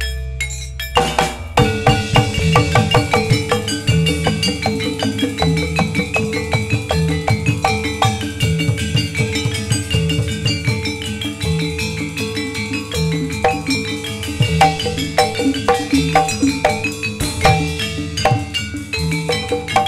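Gamelan accompaniment for jathilan dance: metallophones play a fast run of struck notes over a steady drum pattern, with the full ensemble coming in about a second in.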